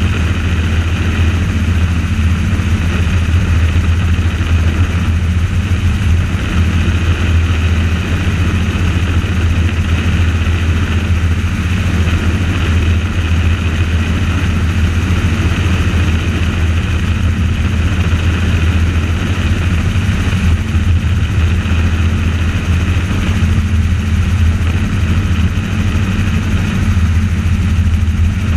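Helicopter in flight heard from on board: a loud, steady drone of rotor and engine with a strong low hum and a higher whine above it, unchanging throughout.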